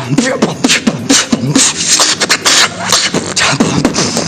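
Human beatboxing: a quick run of sharp mouth-made percussive clicks over low vocal bass sounds, a two-bar beat into which the beatboxer is trying to work a snore bass.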